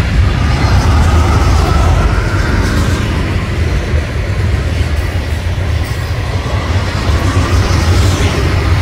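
Manifest freight train rolling past at about 45 mph: a loud, steady rumble of steel wheels on rail, with a faint wheel squeal near the start and again near the end.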